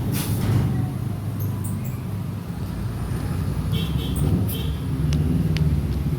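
Steady low rumble of a running engine or vehicle, with a few faint high clicks and chirps about two-thirds of the way in.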